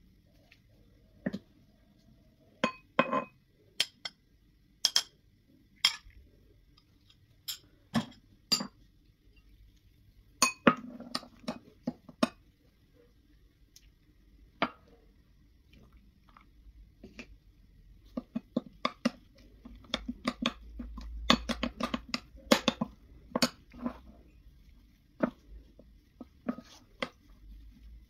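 Kitchen utensils and dishes clinking and knocking against each other in scattered single strikes, with a denser run of quick clinks about two-thirds of the way through.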